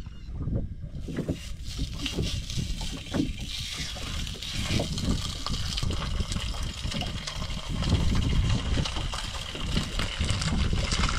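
Mackerel fillets frying in hot oil in a pan: a steady sizzle that starts about a second in and keeps going, over a low rumble.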